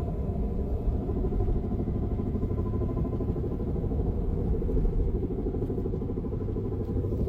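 Car with a badly worn wheel bearing, heard while driving: a loud, steady low rumble with a fast, choppy flutter, like a helicopter. It is the sign of a failed, loose wheel hub bearing.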